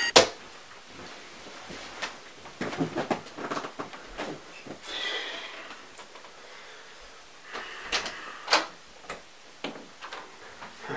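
Scattered soft knocks, rustling and footsteps of a person getting up and crossing a room, with one sharp knock at the start. Several sharp clicks in the second half come from the latch and handle of an interior door being opened.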